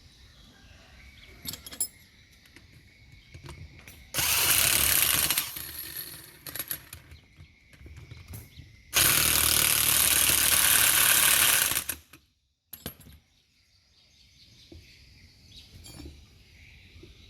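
Power tool run in two loud bursts, a short one and then a longer one of about three seconds, each starting and stopping abruptly, with light clicks and knocks of handling between them.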